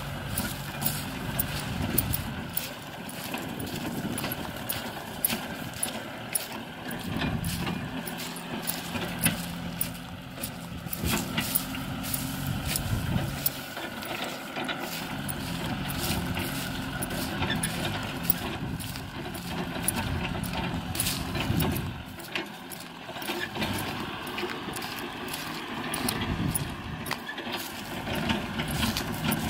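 Kubota M6040SU tractor's diesel engine running under load while it pulls a disc plough and harrow through dry ground, its note swelling and easing every few seconds. Many sharp ticks and rattles run over it.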